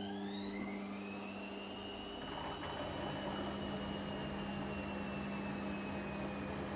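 Washing machine motor whining and rising in pitch as the drum speeds up for a spin, then levelling off and holding at speed over a steady hum and the rush of the turning drum.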